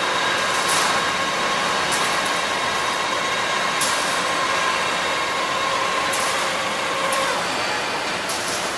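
HVAC duct production line machinery running: a steady motor whine over a steady machine noise, with several sharp clacks. The whine stops about seven seconds in.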